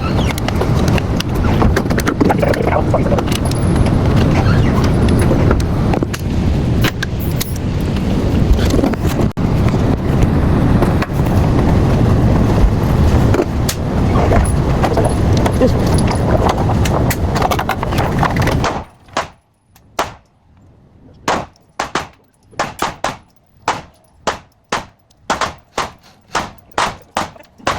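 Steady road and wind rumble of a moving car. About two-thirds of the way through it cuts off abruptly. A run of sharp knocks follows with quiet between them, coming closer together toward the end.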